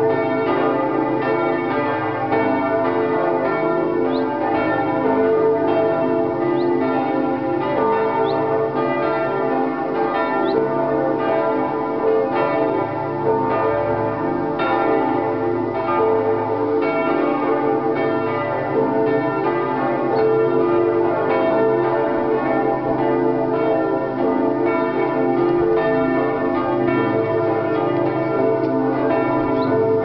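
Several church bells ringing together in a full peal, their strokes overlapping continuously.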